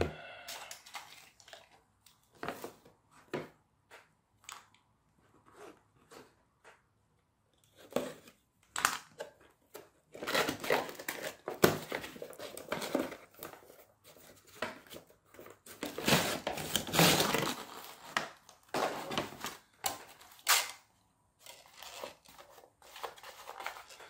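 A cardboard toy box with a clear plastic window being handled and opened: scattered light clicks and taps at first, then from about ten seconds in longer stretches of rustling and scraping cardboard and plastic packaging.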